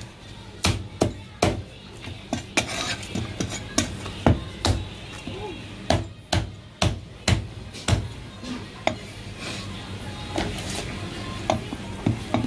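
A heavy cleaver chopping through pieces of marinated goose, bone and skin, onto a plastic cutting board: a run of sharp, irregular chops that comes in quick bursts and thins out over the last few seconds.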